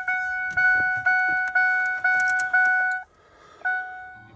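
2007 Ford F-150's dashboard warning chime dinging about twice a second, the warning for the driver's door left open with the key in the ignition, with keys jingling at the ignition. The quick dinging stops about three seconds in, and one more ding follows near the end.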